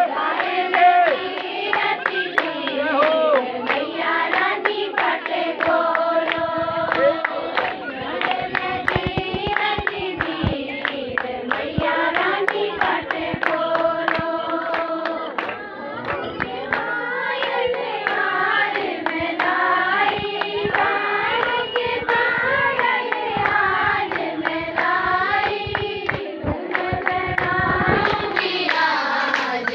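A group of women singing together in unison, clapping their hands in time with the song.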